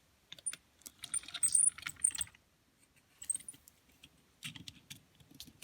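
Light clicks and small metallic clinks of small hard objects being handled, with a bright ringing to some clinks, in a busy cluster from about one to two and a half seconds in and again briefly around three and a half seconds, then a few soft knocks.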